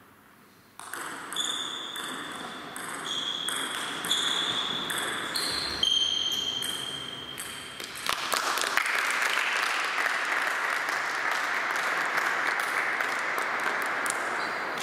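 Table tennis rally: the ball clicking off bats and table about twice a second for some seven seconds, each hit with a short high ring in the hall. Then hand clapping once the point is won, from about eight seconds in until near the end.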